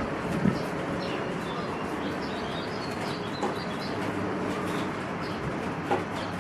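Small birds chirping in short high notes, with a dove cooing, over a steady background hiss.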